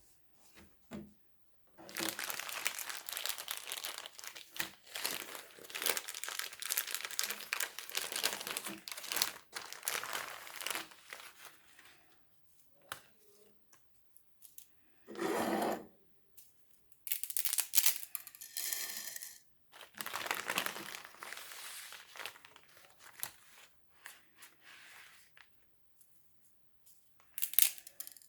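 Crinkling and tearing of plastic packaging, in several stretches of a few seconds with short pauses between them.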